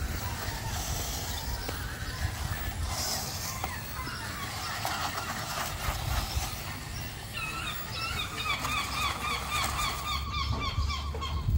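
A bird calling in a quick run of repeated pitched notes, about four a second, starting about halfway through, over a steady low rumble.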